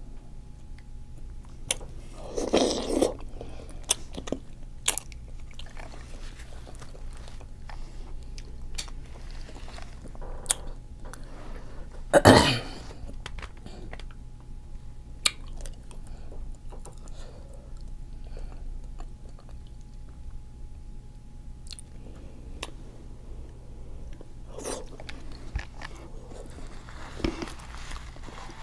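Close-miked eating of seafood-boil food: chewing, biting and wet mouth sounds, with scattered sharp clicks and a few short louder bursts, the loudest about twelve seconds in.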